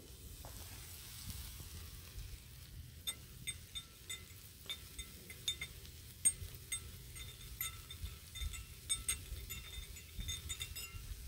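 Metal spoon stirring a drink in a stemmed glass, clinking against the glass in quick irregular runs, each clink ringing briefly. The clinking starts about three seconds in.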